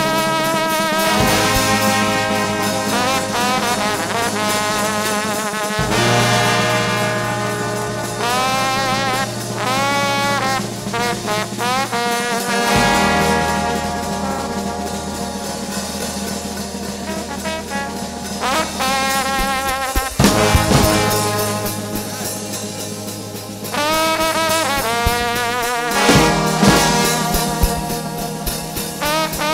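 Trombone shout band playing gospel: a massed section of brass, mostly trombones, playing wavering, shaking notes over low bass notes that change every few seconds. A few drum hits come in during the last third.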